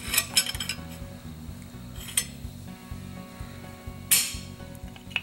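Steel parts of a Winchester 62A pump-action .22 rifle clicking and scraping as the breech bolt and action slide are fitted into the receiver: a cluster of clicks at the start, a single click about two seconds in, and a louder sliding scrape about four seconds in.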